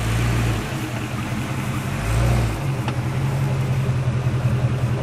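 Truck engines running and revving, with the low engine hum swelling briefly twice, near the start and about two seconds in.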